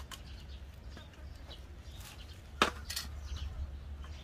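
Metal parts of an old gas stove being handled: a few light clicks, then one sharp clank about two and a half seconds in with a softer knock just after, over a low steady rumble.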